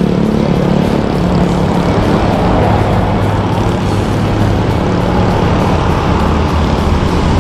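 Loud, steady wind rumble buffeting the microphone, with background music whose low notes hold and change every second or two underneath.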